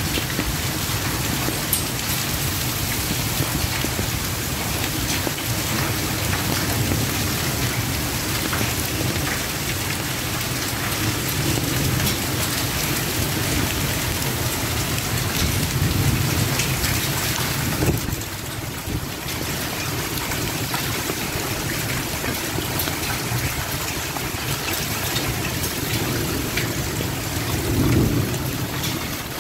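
Heavy rain pouring down steadily in a thunderstorm, with low rolls of thunder swelling up around the middle and again near the end.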